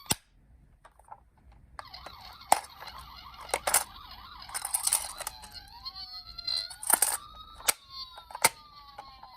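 Electronic siren of a toy emergency-vehicle minicar: after a click and a short pause it starts with a fast wavering warble, then gives a slow rising wail and a long falling one. Several sharp clicks of the toy being handled cut through it.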